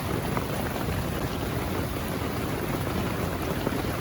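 Steady hiss of heavy rain on the tent mixed with sausages, onions and peppers sizzling in a pan.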